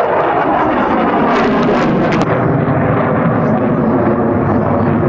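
F-22 Raptor's twin afterburning turbofan engines, a loud, steady jet roar as the fighter flies its demonstration.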